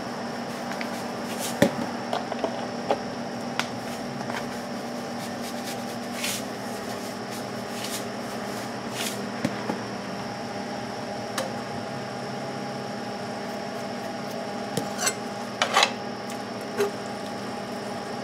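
Steady kitchen background hum with scattered light ticks, and near the end a few clinks of a metal slotted spoon against a cast-iron skillet of cooking spinach as it is stirred.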